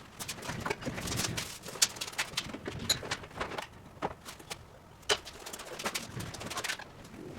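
Irregular knocks, clicks and clatter of hand work, with a few sharper raps throughout.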